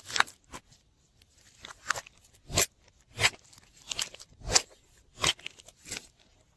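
Slime being squeezed and poked by hand, giving short crackling, popping clicks about once or twice a second at uneven intervals.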